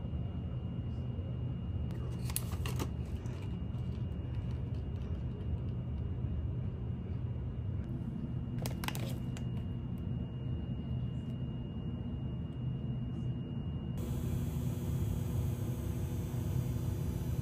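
Steady low rumble of office room noise, with a few light clicks about two and a half and nine seconds in. A brighter hiss comes in suddenly about fourteen seconds in.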